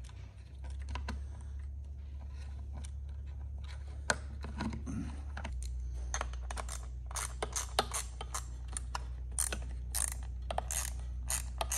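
Hand-driving a screw through an Adel clamp into the nut plate on an aluminium fuel-pump mounting plate: small metallic clicks and taps of the tool and parts, coming much more often from about halfway through, over a steady low hum.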